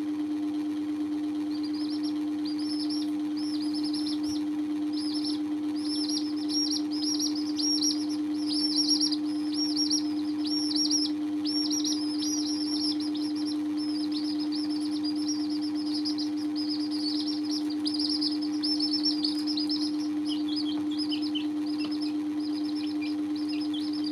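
Young chicks peeping: rapid runs of short, high, falling peeps, busiest through the middle, then a few lower falling peeps near the end. A steady low hum lies underneath.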